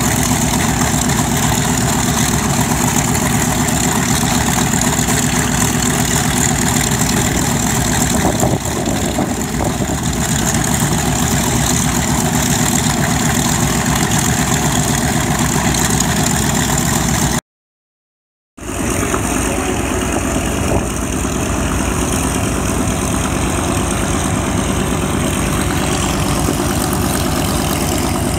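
Radial piston engines of vintage warplanes running steadily at idle. About two-thirds through, the sound drops out for about a second of dead silence at an edit cut, then the engine noise carries on.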